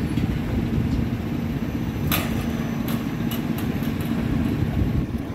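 Spinning pendulum amusement ride running: a steady low rumble with a held hum, and a few sharp clicks about two and three seconds in.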